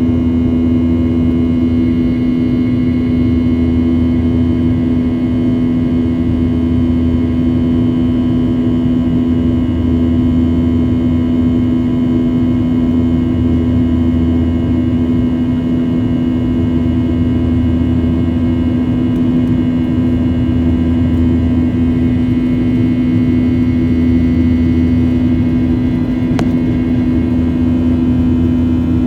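Boeing 737 jet engines and airflow heard inside the passenger cabin in flight: a steady, unchanging drone with a strong low hum and fainter higher whining tones above it.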